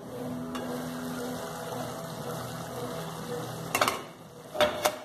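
Ground beef cooking in a pot on a gas stove, a steady simmering hiss, with two short knocks near the end, about a second apart.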